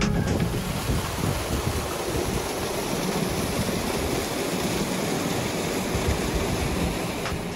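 Mountain river rushing over rocks and spilling in a small cascade into a pool: a steady, even roar of water, with an uneven low rumble underneath.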